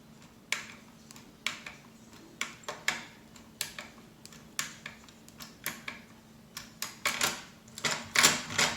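Sharp metallic clicks from a Mottura 4+4 double-bit lever lock being worked with a decoder tool inserted in it, about one click a second at first, then coming faster and louder near the end.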